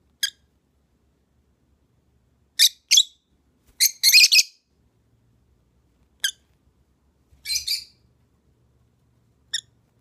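Pet lovebirds giving short, sharp, high-pitched chirps, singly and in quick pairs, with a louder rapid burst of chirps about four seconds in.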